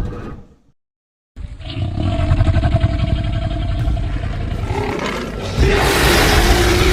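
Custom Tyrannosuchus creature sound effects: a roar fades out in the first second, then after a moment of dead silence a long, low, rumbling growl begins and swells louder about five and a half seconds in.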